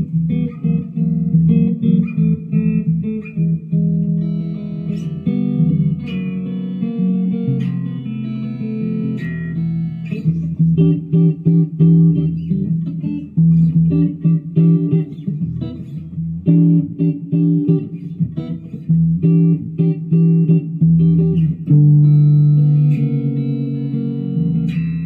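Harley Benton DC-580 CH SG-copy electric guitar played through a small Fender amp on its neck pickup: a run of picked chords and single notes with lots of bass.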